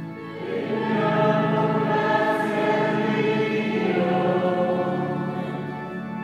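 Choir and congregation singing a slow liturgical chant with long held notes, the voices swelling in about half a second in.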